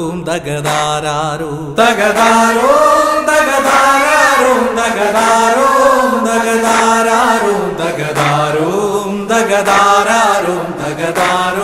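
Music: a voice singing a slow, chant-like melody with long held, wavering notes, growing louder and fuller about two seconds in.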